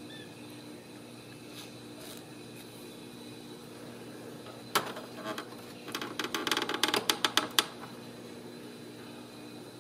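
Kittens clambering on a plastic toy car: one sharp plastic knock about five seconds in, then a quick clattering run of clicks and knocks lasting under two seconds, over a steady low hum.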